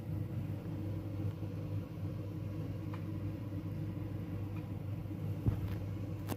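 Steady low hum, with a faint tick or two and a short click at the end.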